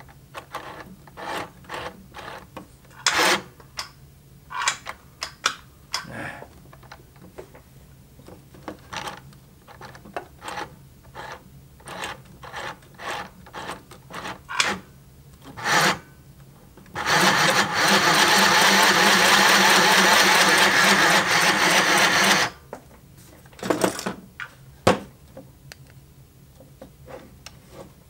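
Plastic clicks and knocks from handling a small battery/adapter-powered mini sewing machine. Then, about two-thirds of the way through, its small electric motor runs steadily for about five seconds and cuts off.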